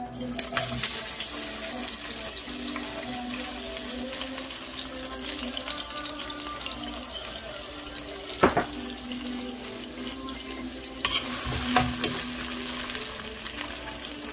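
Chopped onion sizzling in hot oil in a nonstick frying pan, the hiss starting as the onion goes in. A few sharp knocks break in, the loudest about eight and a half seconds in and more around twelve seconds.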